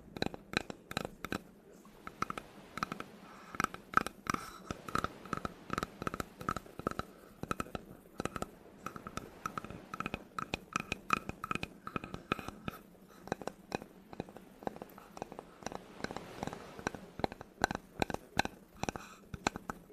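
Rapid, irregular tapping and scratching on a wooden object. Through the middle stretch, the taps carry a short, hollow ring.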